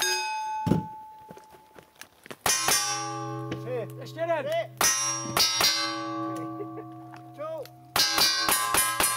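Revolver shots at steel plate targets. Each hit is a sharp crack followed by a long metallic ring, and the rings pile up and overlap. The shots come in quick clusters: about two and a half seconds in, around five seconds, and a fast string near the end.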